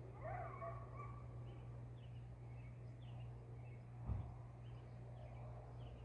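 Faint bird chirps in the distance, short falling notes repeated every half second or so, over a steady low hum. A brief low thump about four seconds in.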